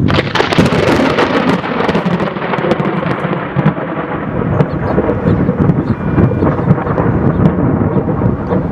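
Thunder: a sharp crack right at the start, crackling for about two seconds, then a long low rolling rumble.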